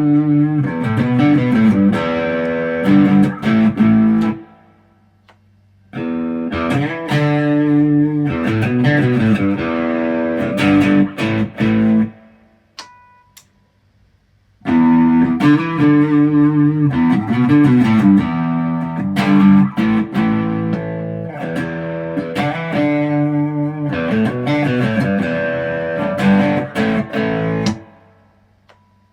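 ESP LTD EC-256 electric guitar played through an amplifier: three phrases of strummed chords and picked notes, each broken off by a short pause, about four seconds in, twelve seconds in and near the end.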